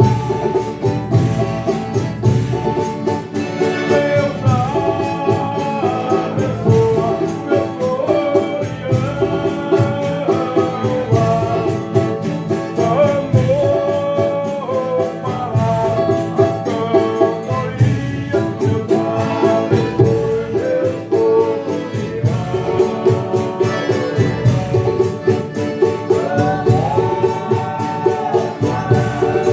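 Folia de Reis company singing a traditional devotional song of thanks, voices over strummed strings and a steady tambourine rhythm.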